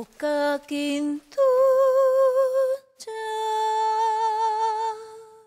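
A high voice singing unaccompanied: a few short lower notes, then two long notes held with a wide vibrato, the last one fading away near the end.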